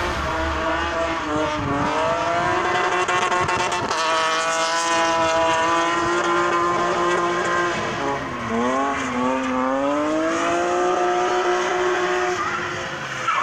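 Drift car's engine revving hard and held at high revs through a slide. The pitch drops sharply about two-thirds of the way through, climbs again, then falls away near the end, over the hiss of spinning tyres.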